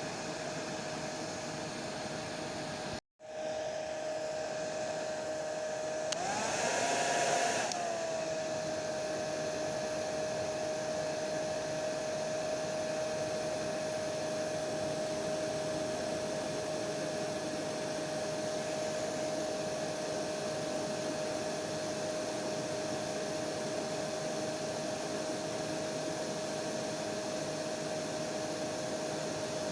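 Hair dryer running steadily: a rushing blow of air with a steady whine. About three seconds in it cuts out for an instant, and around six seconds in the whine rises in pitch and gets louder for a second or two before settling back.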